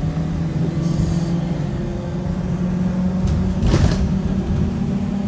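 Steady engine and road drone of a 2018 Blue Bird Vision school bus under way, heard from inside the passenger cabin, with a brief clatter about three and a half seconds in.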